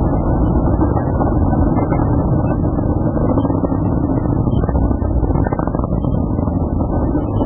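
Atlas V rocket's engine exhaust during launch: a loud, steady, low rumble with no breaks.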